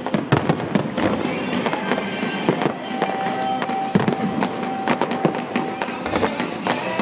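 Fireworks display: a dense, irregular string of sharp cracks and pops from rising comets and bursting shells, several a second, with music playing underneath, one note of it held for a couple of seconds near the middle.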